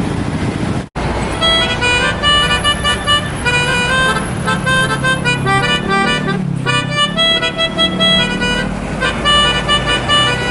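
Bus 'telolet' multi-tone horn playing a stepped, chord-like tune, its notes changing several times a second, over the low rumble of the bus engine; a brief break about a second in.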